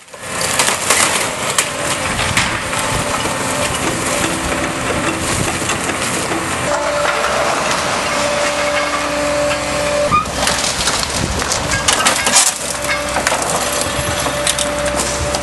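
Demolition machine breaking up a building: continuous crunching and cracking of rubble, with sharp snaps and debris falling. A steady machine whine comes in for a few seconds in the middle and again near the end.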